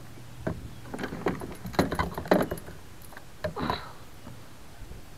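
A run of irregular clicks, knocks and rattles from a landing net and fishing gear being handled against a fishing kayak, thickest around the middle, then it eases off.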